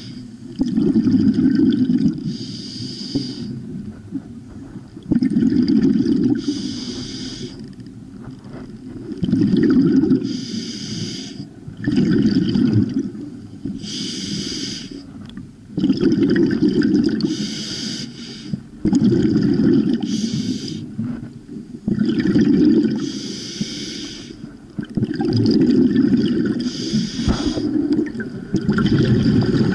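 Scuba diver breathing through a regulator underwater: a short hiss on each inhale, then a low rumbling burst of exhaled bubbles, repeating about once every four seconds.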